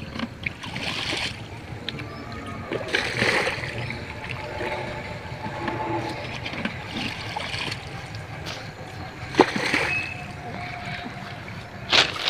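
Shallow muddy water splashing as a plastic bucket is scooped through it and the water flung out, bailing the ditch. Several separate splashes come a couple of seconds apart.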